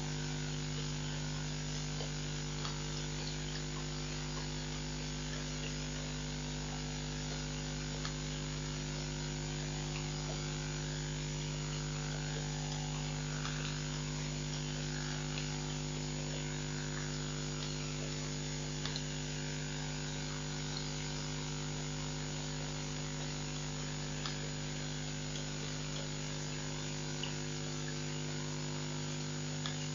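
Steady electrical mains hum with an even hiss underneath and a few faint scattered ticks.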